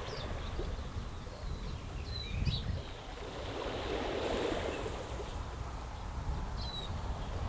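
Small waves washing over a stony beach, one wave swelling up about four seconds in, with a few short, high bird chirps.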